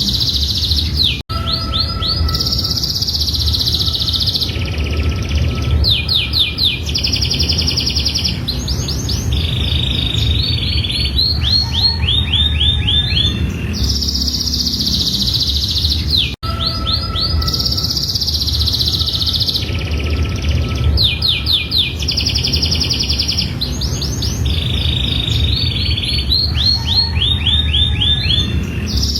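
Domestic canary singing a long continuous song of rapid trills and rolls, each phrase a fast run of repeated notes changing every second or so. The song repeats as a loop, with a brief cut about a second in and again about halfway through. A steady low rumble runs underneath.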